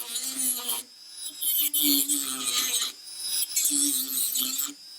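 Dremel rotary tool cutting into the plastic housing of a Lexus NX200T door lock actuator: a steady whine with a grinding hiss, in three spells with short breaks between as the tool is lifted off and put back on.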